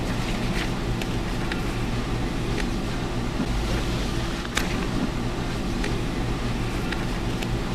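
Car engine idling, heard from inside the cabin as a steady low hum, with a few light clicks and paper rustles as a paper bag and menu flyer are handled.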